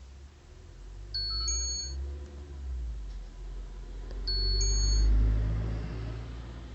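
A car approaching and passing, its low rumble and tyre hiss on the wet road swelling to a peak about five seconds in. A short, high electronic chime sounds twice, about three seconds apart.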